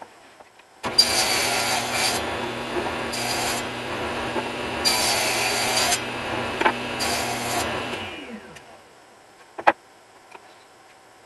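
Table saw running and cutting a 3/8-inch rabbet along the edges of a wood panel, with four separate stretches of louder cutting noise as each edge passes the blade. It is switched off about eight seconds in and winds down, followed by a single sharp knock.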